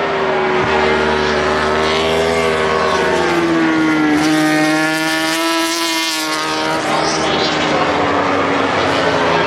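MotoGP race motorcycles' four-stroke engines running at high revs as bikes pass on the circuit. Several engine notes overlap, and one strong note falls slowly through the middle. A steady low drone runs underneath.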